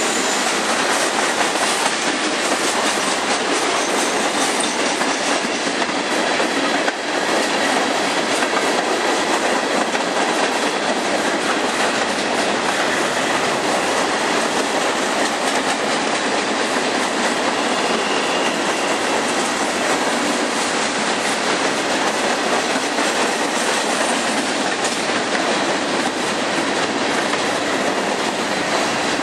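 Freight cars of a long mixed freight train rolling past at close range: the steady noise of steel wheels running on the rails.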